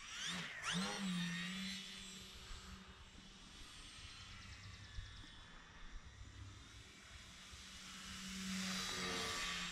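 Motor and propeller of a 32-inch Edge 540 RC aerobatic plane running in flight, a steady drone whose pitch rises about a second in with throttle. It fades through the middle as the plane flies off and grows louder again near the end; overall it is just so quiet.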